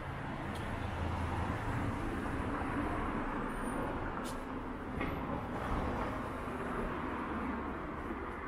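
A heavy vehicle's engine running nearby in street traffic: a low, steady rumble that swells in the first second and slowly fades near the end.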